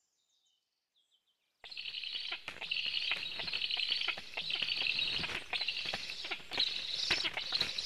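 After a moment of silence, birds call with high, rapid chirping in repeated short bursts.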